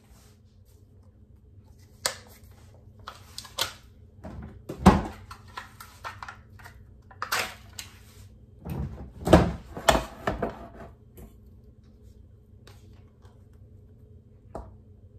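Kitchen items being handled on a countertop: a scattering of knocks and clatters, loudest about five seconds in and again around nine to ten seconds.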